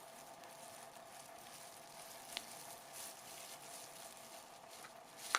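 Faint steady hiss with a faint steady hum underneath, broken by a small click a little past halfway and a sharper, louder click near the end: small handling clicks of parts on the bench.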